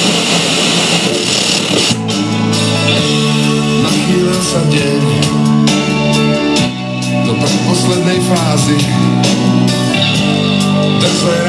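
Sharp GF-9494 boombox radio playing through its speakers while being tuned: hissing static between stations, then about two seconds in a station comes in playing music with singing.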